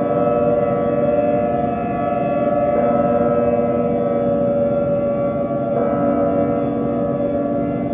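Siren sound effect: a steady wail made of several held tones at once, whose pitches shift in a step about every three seconds.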